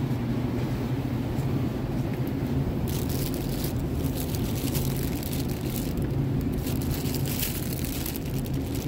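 Clear plastic produce bags crinkling and rustling as bundled yardlong beans are handled, starting about three seconds in, over a steady low background hum.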